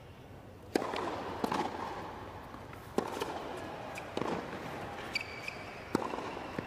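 Tennis ball struck by rackets during a hard-court rally: a series of sharp pops spaced one to two seconds apart over arena ambience, with a brief high tone about five seconds in.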